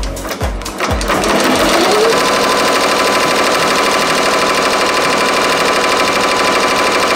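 Ricoma MT-1501 15-needle embroidery machine starting a design: at first it stitches slowly, about three knocks a second. About a second in it speeds up with a rising whine, then runs fast and steady, stitching at full speed.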